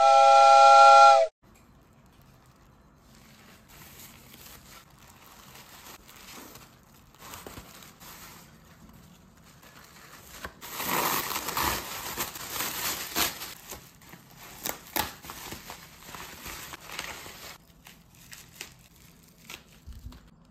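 A loud chord of steady tones sounds for about a second at the start. Then comes crinkling, rustling and tearing of a plastic mailer bag and bubble wrap as a parcel is unwrapped, loudest in the middle, with a few sharp clicks.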